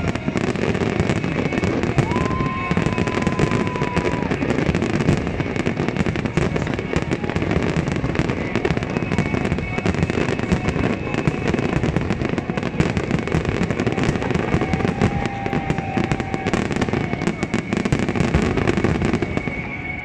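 Aerial fireworks in a closing barrage: a dense, continuous volley of shell bursts and crackling, with a few long whistles, dying away right at the end.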